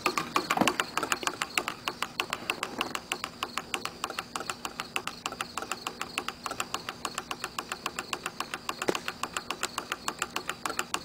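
Homemade soup-can Stirling engine fan running, its crank and displacer mechanism making a fast, even clicking, several clicks a second.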